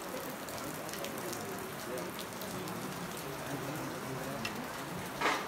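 Steady rain, a constant hiss, under the murmur of many people talking. Near the end there is a short, louder sound.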